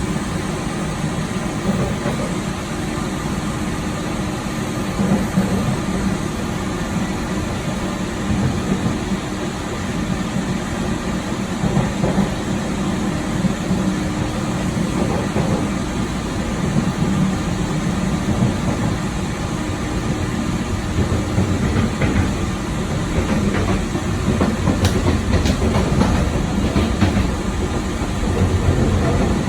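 Running noise in the gangway between cars of a Taiwan Railways EMU3000 electric multiple unit in motion: a steady rumble of wheels on the track with rattling, and a few sharper clicks near the end.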